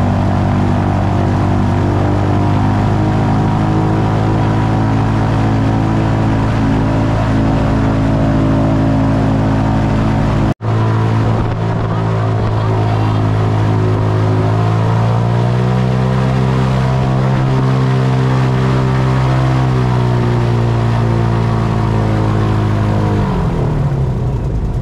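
Airboat engine and propeller running loud and steady under way, with a split-second break about ten seconds in. The engine pitch rises about a third of the way from the end, holds, then drops near the end as the throttle is eased off.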